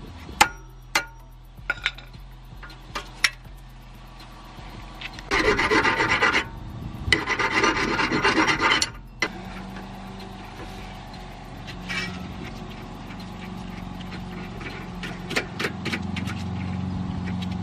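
Hand tools working a car's steering tie rod: a few sharp metal clicks, then two harsh rasping spells of about one and two seconds, a little past five and seven seconds in.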